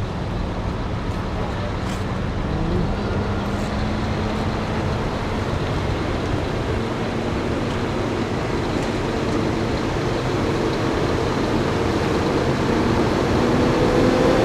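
Heavy truck engines running, with a steady rumble. One engine's pitch climbs slowly and gets louder toward the end.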